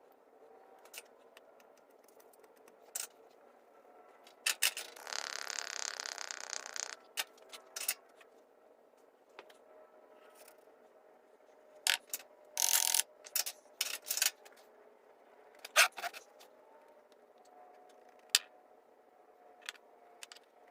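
Intermittent scraping and handling noises: scattered sharp clicks and knocks, with one longer scrape lasting about two seconds about five seconds in.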